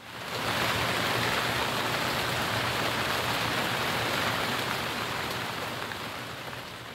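Rain sound effect: a steady hiss of rainfall that fades in quickly at the start and fades away gradually toward the end, marking the rain stopping.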